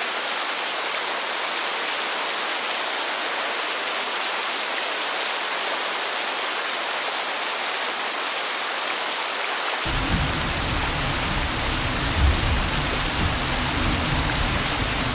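Steady hiss of rain, with a low rumble joining about ten seconds in.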